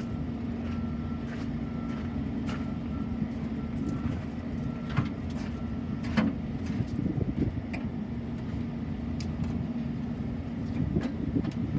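Steady low mechanical hum of running machinery, with scattered light clicks and knocks over it.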